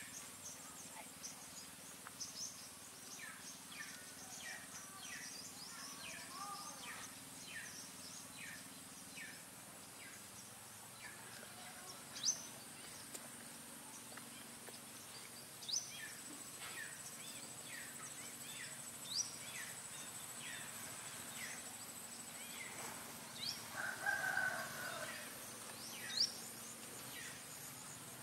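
Outdoor ambience: a steady high insect drone with scattered short high chirps. A louder call comes about 24 seconds in.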